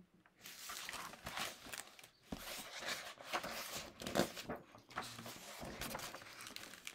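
Paper rustling as a large picture book is handled and its page turned, with a few soft knocks among the rustle.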